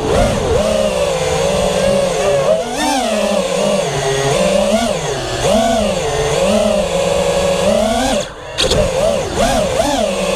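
FPV quadcopter's four 2650kV brushless motors and propellers whining, recorded on board; the pitch rises and falls constantly with the throttle. About eight seconds in the sound briefly drops away and then picks back up.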